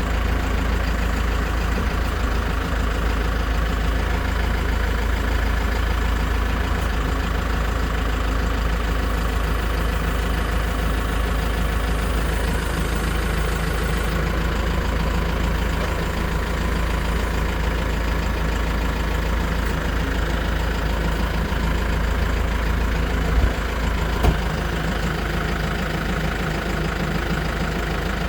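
Tractor's diesel engine running steadily at idle, with two short knocks about a second apart near the end.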